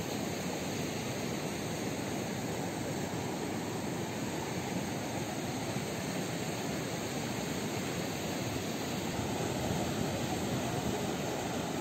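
Rough sea surf breaking and churning along the beach, a steady roar with no separate wave crashes standing out.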